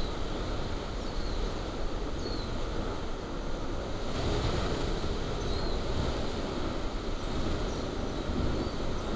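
Lava fountain at a Kilauea fissure vent, a steady rushing roar of gas and molten spatter jetting from the vent, a little louder from about four seconds in.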